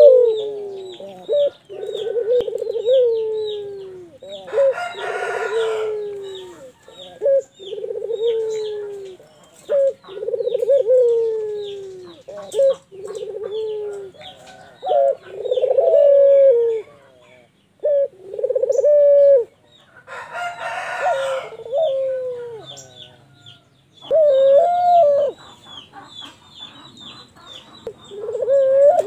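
Barbary dove (puter) cooing over and over, a series of low coos each falling in pitch at the end. A rooster crows twice, about 5 s and 20 s in, and faint high bird chirps run behind.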